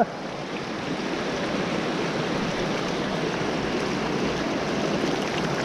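Steady rush of a small mountain trout stream flowing over rocks.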